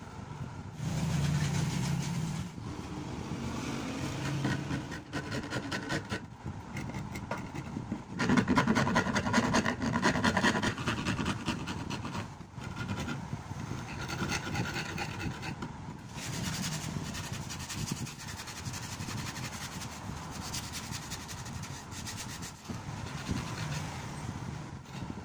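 Wooden cricket bat handle being hand-filed or rasped: continuous scraping strokes, with a louder run of quick strokes about a third of the way through.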